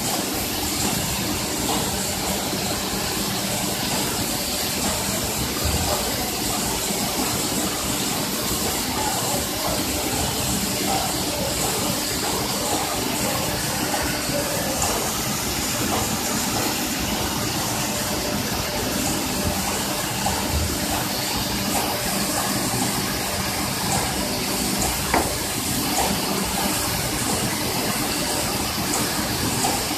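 Steady rush of cooling water running through hoses into the trough of a copper-rod continuous casting line, over a constant machinery hum, with a single click about 25 seconds in.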